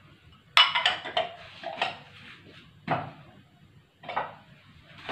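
Kitchen containers and a plastic blender jug being handled: a sharp, ringing clink about half a second in, then a few lighter knocks and clatters. The blender motor is not running.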